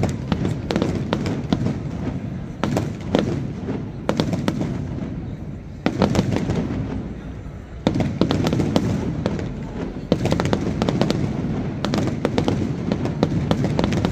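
Aerial firework shells bursting: a continuous run of bangs and rapid crackling, with heavier booms every two seconds or so.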